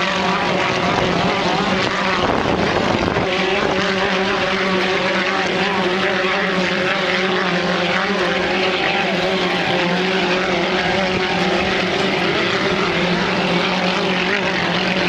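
Racing hydroplanes' engines running at speed: a loud, steady engine drone that holds nearly one pitch throughout.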